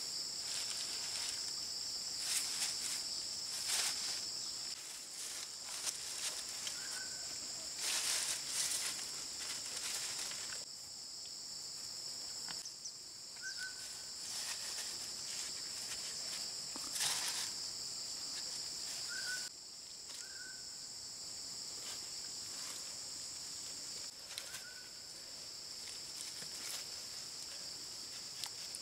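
A steady, high-pitched drone of insects, with brief rustles now and then and a short high chirp every few seconds.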